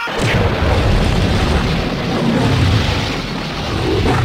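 Loud, explosion-like rumbling sound effect with a rough low roar that starts suddenly and holds steady.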